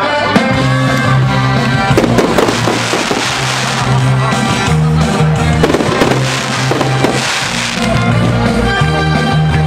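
Music with a steady, heavy bass line plays throughout, with fireworks shells bursting over it in scattered bangs and crackles.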